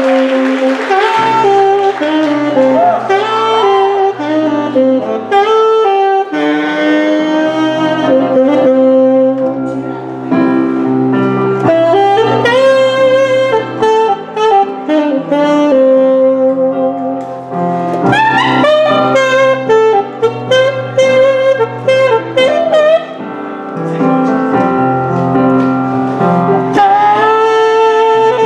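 Saxophone playing a lively jazzy melody over sustained low bass notes, with applause fading out in the first second.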